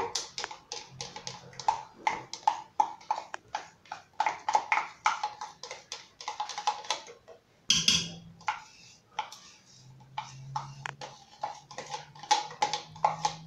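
Metal spoon scraping and tapping inside an opened can of condensed milk, quick strokes about three or four a second, each with a short metallic ring. The strokes stop briefly with a louder clatter about eight seconds in, then carry on.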